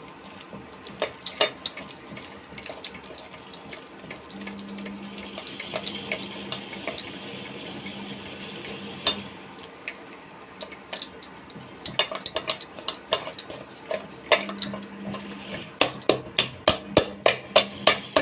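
Jalebi batter of flour and water being mixed and beaten in a bowl, the mixing utensil clicking against the bowl. The clicks come in scattered clusters at first, then settle into a quick, even beat of about three a second near the end.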